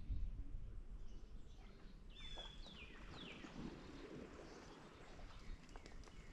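Faint outdoor ambience with a songbird calling: a few short whistled notes sliding downward, about two seconds in, over a low rumble.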